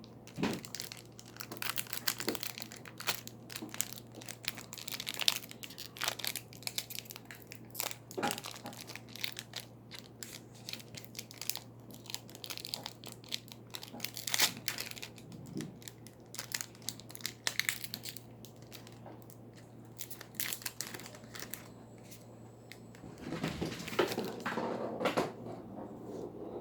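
Packaging of a Pokémon Trading Card Game product being torn open and crinkled by hand: a long run of irregular crackles, rustles and small snaps, loudest and densest near the end.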